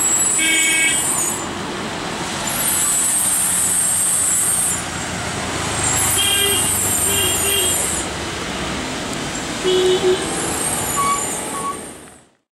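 Heavy truck's diesel engine running low and steady as it crawls around a hairpin bend, with several short horn toots. A high-pitched hiss comes and goes over it, and the sound fades out near the end.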